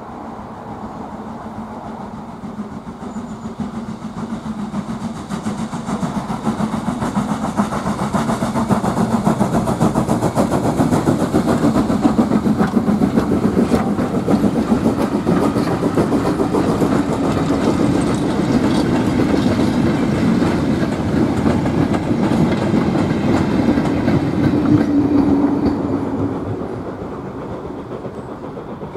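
A steam-hauled goods train of four-wheeled vans and wagons running past, wheels clattering over the rail joints in a dense rapid rattle. The rattle builds through the middle and drops away near the end as the brake van goes by.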